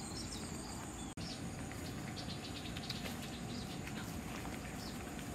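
Outdoor woodland ambience: a steady, high-pitched insect drone with scattered faint chirps and ticks, and a momentary dropout about a second in.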